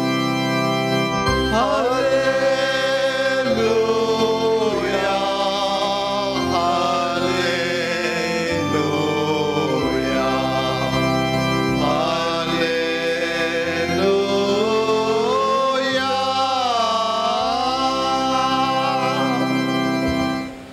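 Organ playing sustained chords, with a voice singing a short liturgical response over it from about a second and a half in. The music stops abruptly near the end.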